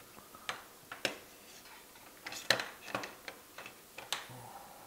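Irregular light clicks and taps from a MacBook being handled on a workbench mat, about ten in all, the sharpest about two and a half seconds in and just after four seconds.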